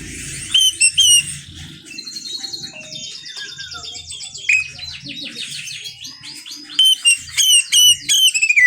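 Oriental magpie-robin (kacer) singing a varied song of sharp whistled notes, with a fast trill about three to six seconds in and a run of loud falling whistles near the end. This is a lure song played to provoke other kacer birds into singing.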